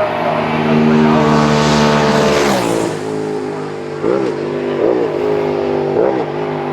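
Racing motorcycle passing at full throttle, its engine note dropping sharply in pitch as it goes by about two and a half seconds in. It then pulls away, the revs climbing and falling again with each quick gear change.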